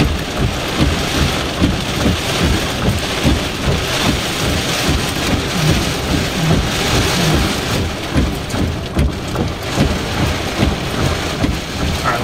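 Heavy rain hammering on a car's roof and windshield, heard from inside the cab, with a constant irregular low rumble under it.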